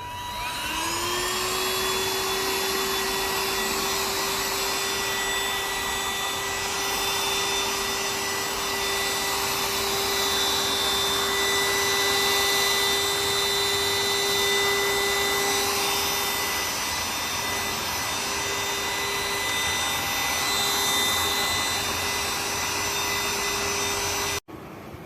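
Cordless handheld stick vacuum cleaner running: its motor spins up with a rising whine, holds a steady high whine over the airflow hiss, then cuts off suddenly near the end.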